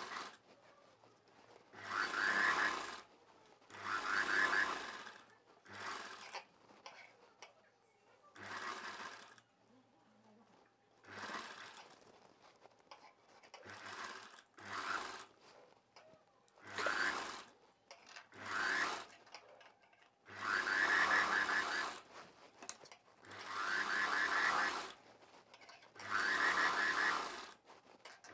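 Household sewing machine stitching in about a dozen short runs of a half to two seconds, stopping between runs while the fabric is repositioned under the presser foot.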